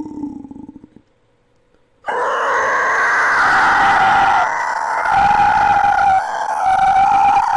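Monster creature sound effect: a low growl that dies away about a second in, a second's pause, then a loud, drawn-out shrill screeching cry that holds on with brief dips.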